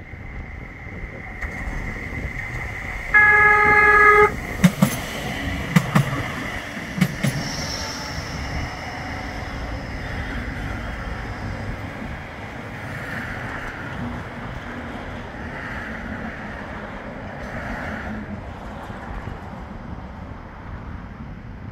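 Bombardier Flexity 2 tram sounding its horn once, for about a second, as it approaches, then running past with a steady rumble and three sharp clacks.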